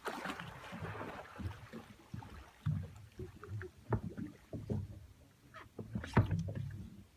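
Small waves lapping and slapping against the hull of a small open boat, with irregular low sloshes and a few sharp knocks, the loudest a little past six seconds in.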